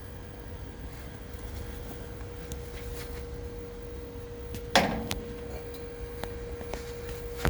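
Automatic swing door with an electromagnetic lock: a steady electrical hum, with a single loud clunk about five seconds in, as the door shuts against the magnetic lock.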